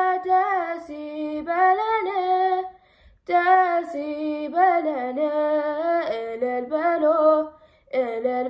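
A girl singing a hymn unaccompanied, in slow phrases of long held notes that bend in pitch. She pauses briefly for breath about three seconds in and again near the end.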